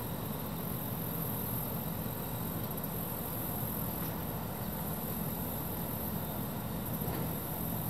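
Steady background rumble and hiss, even throughout, with no distinct events.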